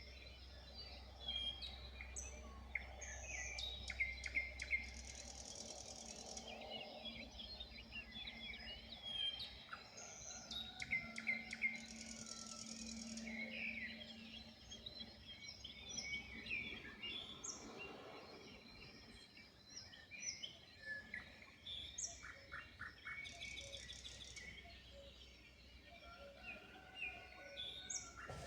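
Several wild songbirds chirping and singing together in a morning chorus, with a high, rapid buzzy trill that comes back several times among the whistles and chirps, over a faint low rumble.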